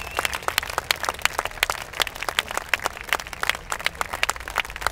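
A crowd applauding, with many separate claps that stay distinct rather than merging into a roar.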